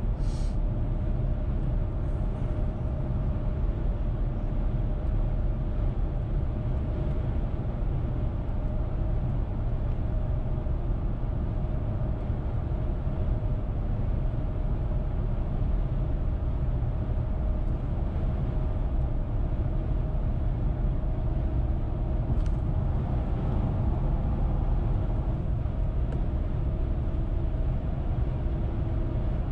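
A car driving at highway speed: steady low road and tyre rumble with a faint steady hum. A brief click at the very start and another about 22 seconds in.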